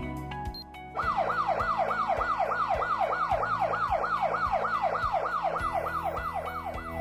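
Electronic alarm siren of an intrusion alarm system sounding a fast, repeating sweep, about three rising-and-falling whoops a second. It starts about a second in, as the background music fades out.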